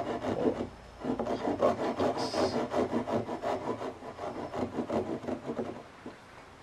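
Japanese pull saw cutting across a wooden board in short, careful strokes, starting the cut in a knife-scored groove. The rasping strokes break off briefly about a second in, run on, and stop near the end.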